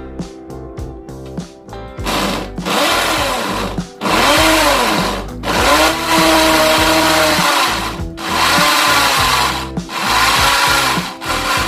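Corded electric drill with a 6 mm bit boring into a wall for a wall plug. It runs in about five short bursts of one to two seconds, starting about two seconds in, and its pitch sags and recovers under load in each burst.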